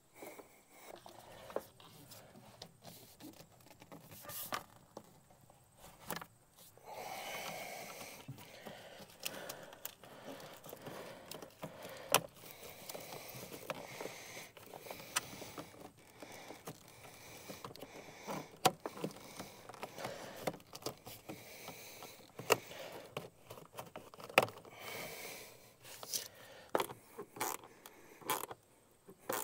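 Parts and hand tools being handled while reassembling a truck engine: scattered clicks, light knocks and scraping, with a few sharper clicks along the way.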